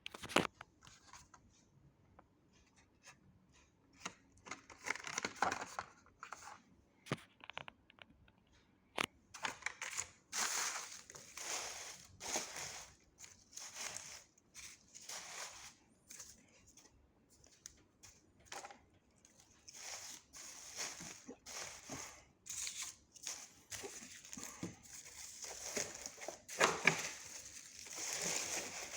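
Toy packaging being opened and handled: cardboard and plastic rustling, crinkling and tearing in irregular bursts, with a few sharp clicks.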